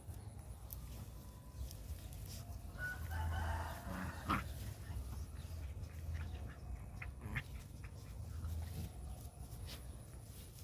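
A chicken calling briefly about three seconds in, followed by a few sharp clicks.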